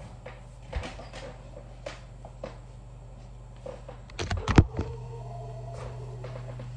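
Handling noise from a phone being moved and set back down on a desk: scattered light knocks and taps, with a louder cluster of thumps about four and a half seconds in, over a steady low hum.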